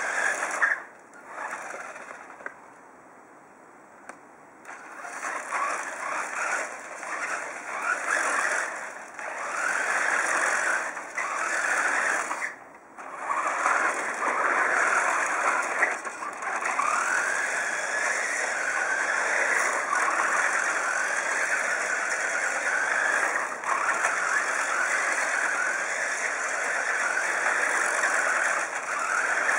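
Electric motor and gears of a radio-controlled MAN TGA truck on a Tamiya chassis whining up and down with the throttle, as the wheels rattle over wooden deck tiles. The truck goes quiet for about two seconds near the start and briefly about 13 seconds in.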